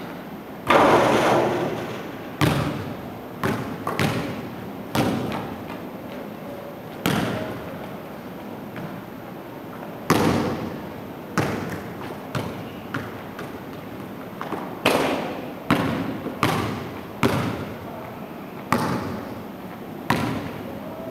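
Basketball bouncing on a hardwood gym floor: single thuds at uneven intervals, each echoing off the walls. The loudest, about a second in, is the shot striking the hoop.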